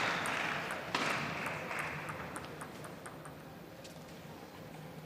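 Arena crowd applause dying away after a point, with a sharp knock about a second in. Under it, light, evenly spaced ticks of a table tennis ball, about four a second, fade out after about three seconds.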